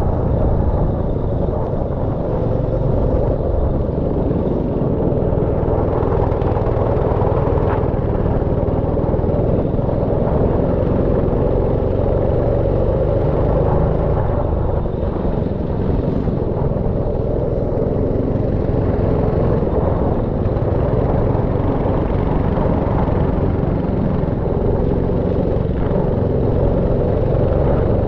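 Go-kart engines running steadily, with a low rumble.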